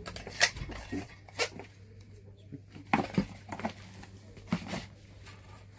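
Scattered sharp clicks and knocks of a handheld wireless microphone and its cardboard box being handled, over a steady low hum.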